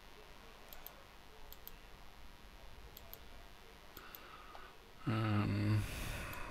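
Faint computer mouse clicks, each a quick double tick, about four times in the first few seconds. About five seconds in comes a short hummed "mm" from the speaker, then a breath.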